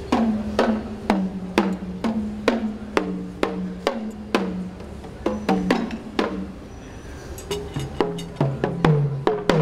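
Hand-held uchiwa daiko (Japanese fan drums) struck with sticks in a steady beat of about two strokes a second, each stroke a short tone that drops slightly in pitch. Near the end a lower-pitched drum joins and the strokes come faster, interlocking.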